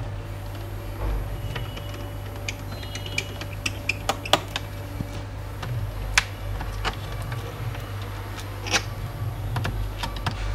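Scattered small clicks and taps of a screwdriver and fingers working on the plastic base of an HP 15 laptop, thickest in the middle, over a steady low hum.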